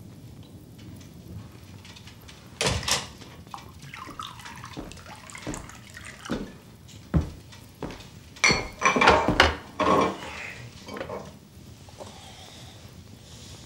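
Wine poured from a glass bottle into a wine glass, with knocks and clinks of glass. There are two sharp knocks about three seconds in, and the loudest stretch of clinking and pouring comes around nine seconds in.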